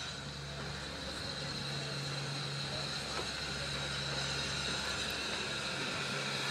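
Distant steam train approaching: a steady low rumble that slowly grows louder.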